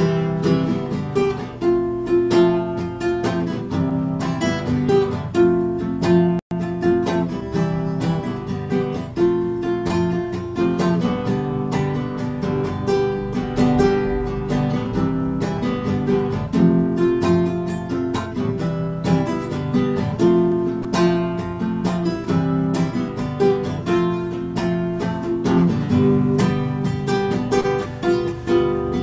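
Acoustic guitar strummed in a steady rhythm, the instrumental opening of a song, with no voice yet. The sound cuts out for an instant about six seconds in.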